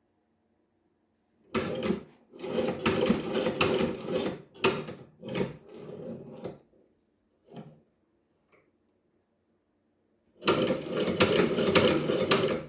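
Chinese leather shoe-patcher sewing machine stitching: a clattering run of stitches with a few short stops, a pause, then another run near the end.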